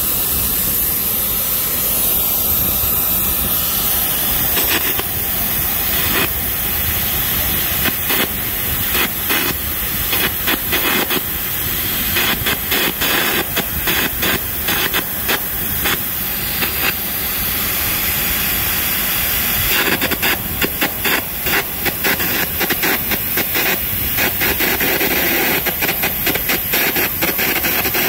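Air carbon arc gouging on structural steel. The compressed-air jet hisses steadily through the torch while the carbon electrode's arc crackles and pops as it gouges out the weld seam so the column connection can be removed. The crackling comes in thick runs through the middle and again in the last third.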